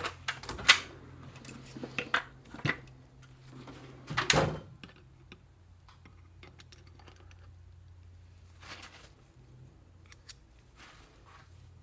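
Small metal hand tools and turbo rebuild parts clinking and clattering as they are picked up and set down on a workbench: several sharp clicks in the first five seconds, the loudest about four seconds in, and one more around nine seconds in, over a steady low hum.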